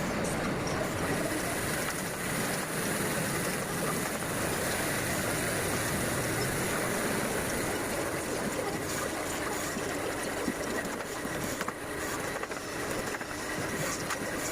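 Woodworking power tool running steadily, with a faint high steady whine and a few light knocks near the end.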